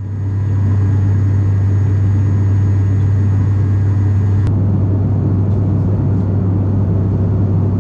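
Cabin drone of an ATR 72-500 twin-engine turboprop in flight: a loud, steady low propeller hum over engine and air rumble. A faint higher whine in the mix stops about halfway through.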